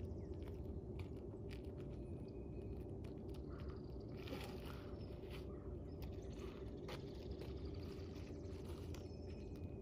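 Faint scattered knocks and a brief scrape from roofers working on a shingle roof, over a steady low hum.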